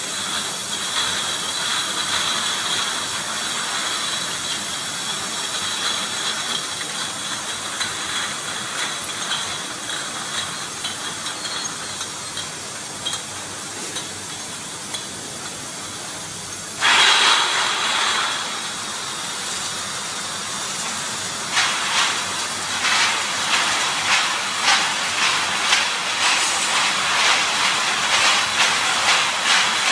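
Bottling-line noise: glass infusion bottles clinking and knocking together as they crowd along a slat-chain conveyor, over a steady machine hum with a high whine. About halfway through there is a short, loud hiss, and near the end the clinking becomes dense and rapid.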